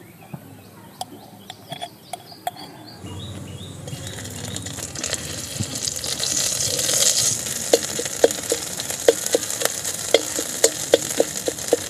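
A metal spoon clinks against a glass jar as fermented dry fish paste is scooped out. Then the paste sizzles in hot oil in a metal wok, the sizzle building from about three seconds in. Near the end a metal spatula clinks and scrapes against the wok in quick strokes.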